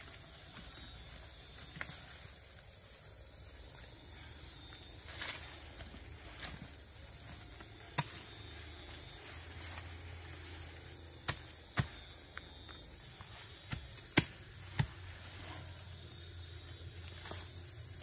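Steady high-pitched insect chirring, with about half a dozen sharp clicks or snaps in the second half.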